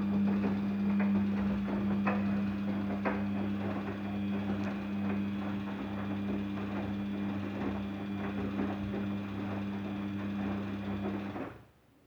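Daewoo DWD-FT1013 washing machine running early in its cycle: a steady electric hum with a watery rush and scattered light clicks, stopping suddenly near the end.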